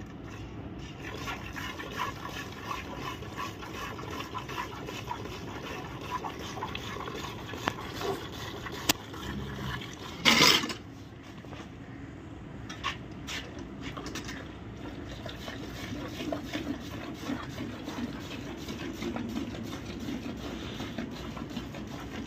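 Milk squirted by hand from a cow's teats into a steel bucket: a steady run of hissing squirts spattering on the milk already in the pail. About halfway through there is one brief, loud noise.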